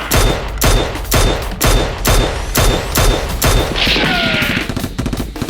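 Gunfire sound effects: a steady string of single shots about two a second, each followed by a short high ping. About four seconds in, a hissing burst with falling whines.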